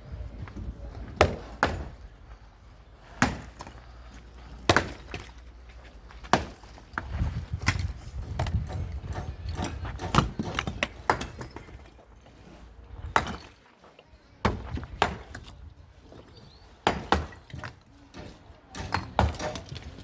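Irregular sharp knocks and blows of manual building work, a dozen or more strikes spaced a second or two apart, some in quick pairs, over a low background rumble.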